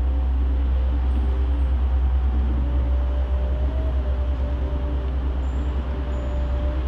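Steady low city rumble with a deep, constant hum underneath and a few faint steady tones above it; no single event stands out.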